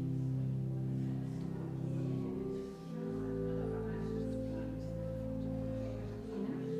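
Slow instrumental music of long held chords over a steady deep bass, moving to a new chord about three seconds in and again near the end.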